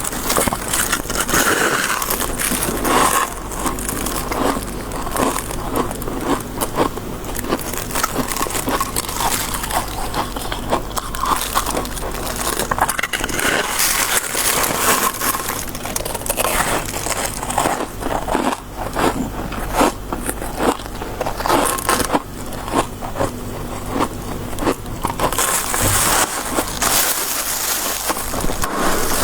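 Close-miked biting and chewing of soft white freezer-frost snow ice: a dense, continuous crunching and crackling, bite after bite.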